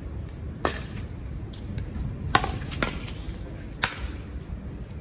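Pickleball paddles striking the plastic ball during a rally: four sharp pops at uneven gaps of about half a second to a second and a half, with a few fainter clicks between them.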